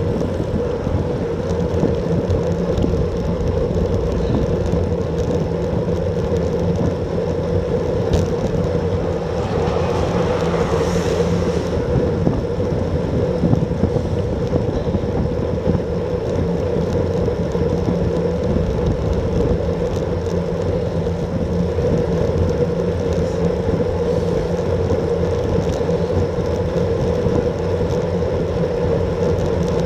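Steady wind rush over a bike-mounted action camera's microphone with tyre and road noise from a road bike riding at about 31–35 km/h. A brief swell of rushing noise comes about ten seconds in.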